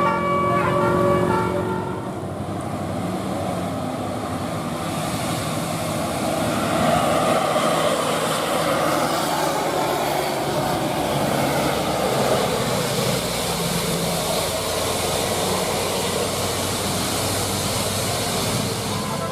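A few notes of a multi-tone telolet bus horn cut off in the first second or two. Then comes a loud, steady rush of engine and tyre noise as a bus passes at speed.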